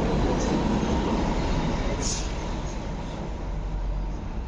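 MTR Light Rail vehicle moving off past the platform close by, a steady rail rumble that eases off over the second half, with a short high-pitched screech about two seconds in.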